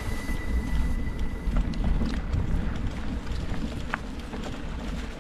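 Wind rumbling on the microphone while riding a bicycle, with scattered light clicks and knocks from the bike rattling over rough ground.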